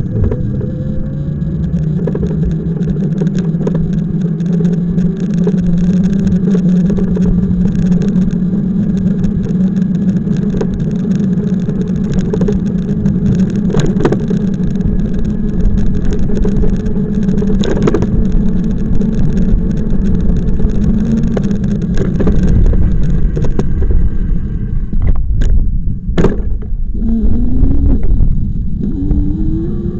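Riding noise from a moving bike: a steady motor drone over road rumble. The drone rises in pitch as it speeds up near the start and again near the end. A few sharp knocks come from bumps, two of them close together near the end.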